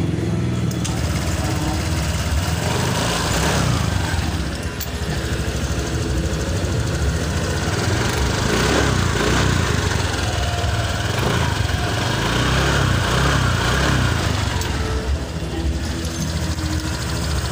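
Honda Vario 150 scooter's single-cylinder engine running steadily, tested after its radiator cover and bolts were shimmed against rattling.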